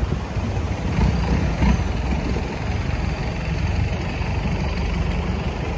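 Engine of a wooden passenger boat running slowly with a steady low rumble as it nears shore. The rumble swells briefly between one and two seconds in.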